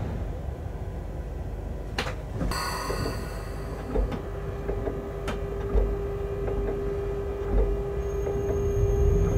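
Inside a moving locomotive's cab: a steady low running rumble with occasional wheel clicks over the rails. About two seconds in comes a sharp click and a brief hiss, after which a steady mid-pitched hum sets in and holds.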